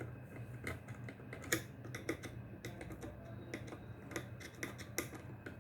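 Light, irregular clicks and taps of a metal tool touching the legs of the MOSFETs on a motherboard, shorting their three legs together to discharge them. The two sharpest clicks come about a second and a half in and near the end, over a low steady hum.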